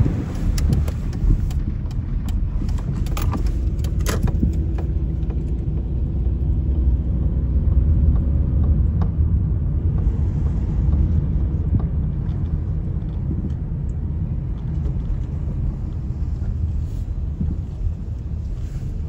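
Steady low rumble of a moving car's engine and tyres on the road, with a few light clicks in the first few seconds.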